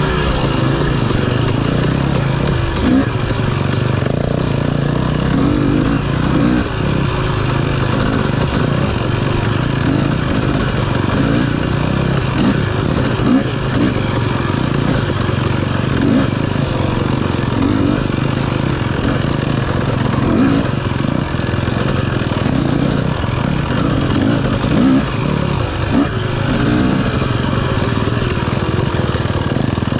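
KTM 250 dirt bike engine heard from on the bike, running continuously with the revs rising and falling as the rider works the throttle along the trail.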